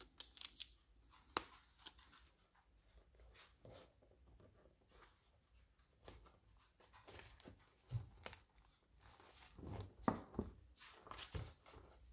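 Faint handling noises: a cardboard box of freezer bags being shifted and pressed against a wooden cabinet door, with scattered light taps and knocks and a soft thump about eight seconds in.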